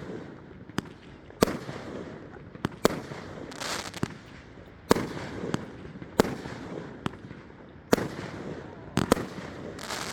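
A 16-shot consumer fireworks cake firing: sharp bangs about once a second, with a burst of crackling a little before the middle.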